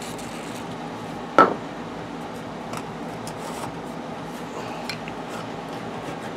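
One sharp metal clink about a second and a half in, then a few faint taps and scrapes: a steel socket on a ratchet extension bar being fitted and set into the mouth of a metal fuel sender tube.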